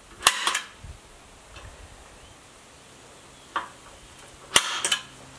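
Forged steel barrel hinge worked by hand on a wooden bench, its leaf swinging on the pin: two sharp metallic clacks with a short rattle, one at the start and one near the end, and a fainter click between them.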